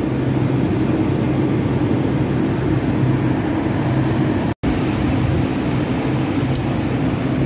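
Ford Focus engine idling steadily, heard close up in the engine bay as an even hum, cut off for an instant a little past halfway.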